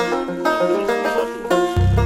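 Background music: a run of quick plucked-string notes, joined near the end by a deep, steady low part.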